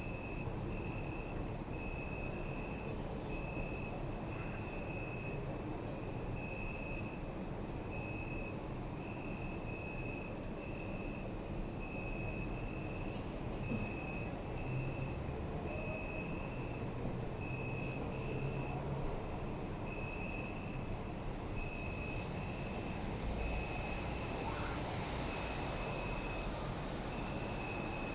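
Crickets chirping at night: a steady, very high-pitched insect trill with another cricket chirping in short, even pulses a little more than once a second, over a low rumble.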